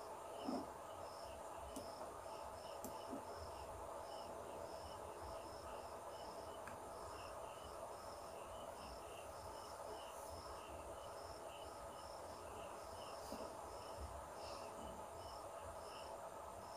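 Faint background chirping of insects, crickets by their sound: a steady, even rhythm of short high chirps over a low room hum, with a few faint clicks.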